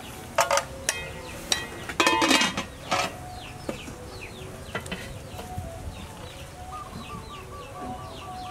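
Metal cookware clanking several times in the first three seconds, sharp knocks with a brief ring. Small birds chirp throughout, and a run of quick repeated clucking notes, like chickens, comes near the end.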